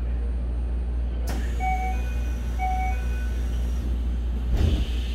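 Interior noise of a Keikyu 1000-series electric train car: a steady low hum and rumble, with a few short beeping tones about two seconds in and a single heavy thump near the end.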